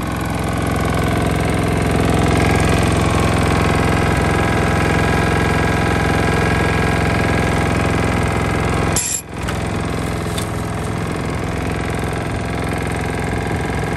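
Briggs & Stratton four-stroke lawn mower engine running with a steady, rhythmic knocking, which the owner takes for bearing knock, a worn connecting-rod bearing. There is a brief break in the sound about nine seconds in.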